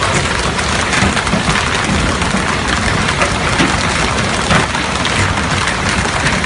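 Heavy downpour of rain, a loud, steady hiss thick with countless drop hits on surfaces.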